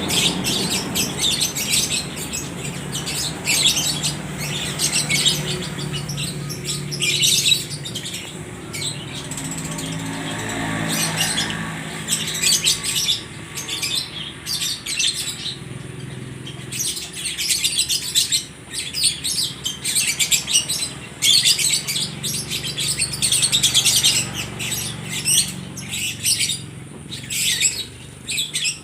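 Lovebirds chattering in rapid, shrill bursts, several birds answering one another without pause. A low steady hum runs underneath.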